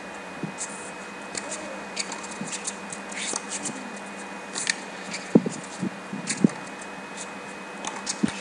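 Tennis rally on a hard court: sharp racket-on-ball strikes, the loudest a little past halfway and another near the end, with many short shoe scuffs and squeaks on the court surface between them.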